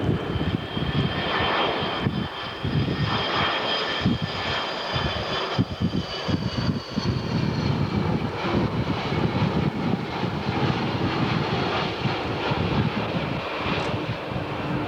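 Jet airliners flying past in formation: a steady high engine whine over a low rumble, the whine slowly falling in pitch as they pass, with wind buffeting the microphone.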